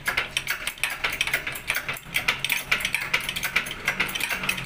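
Shop hydraulic press working to push a car's front wheel hub out of its bearing for a bearing replacement. It makes a rapid, uneven run of clicks and rattles over a low steady hum.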